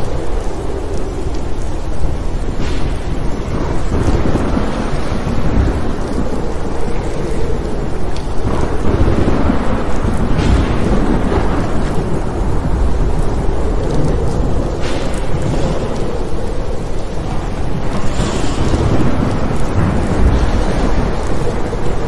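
Thunderstorm: steady heavy rain with low, rolling thunder rumbling up several times.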